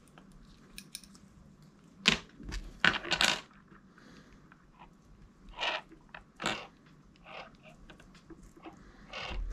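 Hands working fishing line and hooks while tightening a figure-eight knot: scattered short rustles and clicks, the loudest cluster about two to three seconds in.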